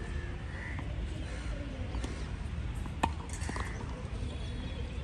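A single sharp tennis ball strike about three seconds in, over a steady low background hum.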